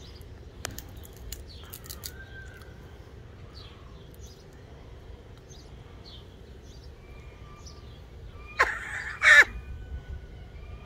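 Small birds chirping faintly on and off, then two loud, harsh bird calls in quick succession near the end.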